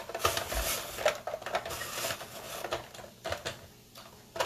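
Hand-cranked Brieftons 5-blade spiralizer cutting a peeled sweet potato into noodles: irregular clicking and scraping of the crank and blade, thinning out near the end.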